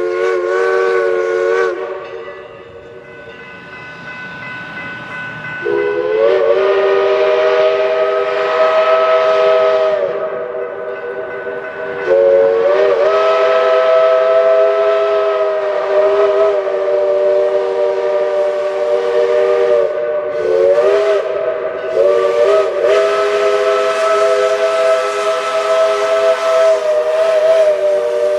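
A steam locomotive's chime whistle sounding a chord of several steady tones at once, in long blasts. One blast ends near the start, another lasts about four seconds, and a long drawn-out blast begins about twelve seconds in, its pitch wavering briefly a few times.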